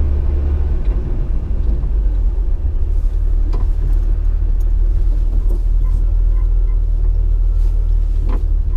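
Steady low road rumble inside a 2006 Jeep Wrangler's cabin while driving, with a few faint clicks and rattles above it.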